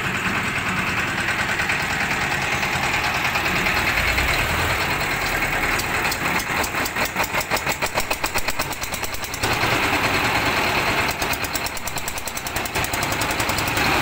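Small diesel engine on a concrete mixer running with a rapid, even knocking beat. From about six seconds in the beat gets sharper and the loudness pulses and shifts a few times.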